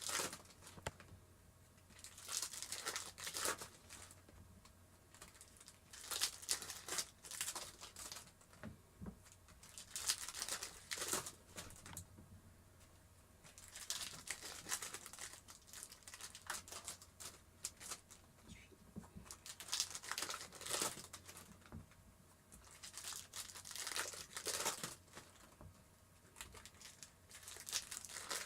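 Plastic trading-card pack wrappers crinkling and tearing in repeated bursts as packs are handled and torn open.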